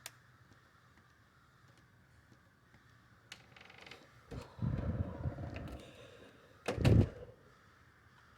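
A couple of dull thumps and some rustling, the loudest thump about seven seconds in, over a faint steady hiss.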